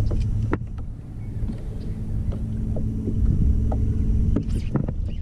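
Steady low rumble of water and wind on the camera microphone aboard a fishing kayak, with scattered light clicks and knocks, a small cluster of them near the end.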